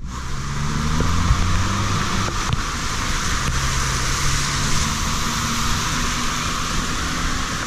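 Car engine running steadily under a loud, even hiss of water on a flooded street.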